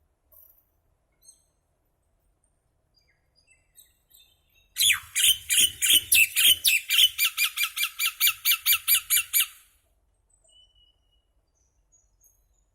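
Common myna calling: a few faint chirps, then about five seconds in a rapid string of loud repeated notes, about six a second, lasting some five seconds before stopping.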